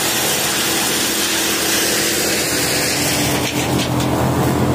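A tractor-driven wood chipper running, its engine humming steadily while the machine shreds tree branches with a loud rushing hiss. About three and a half seconds in, the hiss drops away and the engine's steady hum is left.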